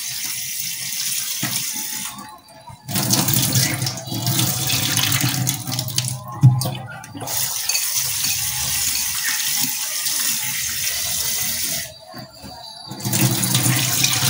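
Tap water running into a clay bowl of soaked soya chunks in a steel sink as they are rinsed by hand, the water then poured off into the sink. The flow stops briefly about three times, and there is a single knock about six and a half seconds in.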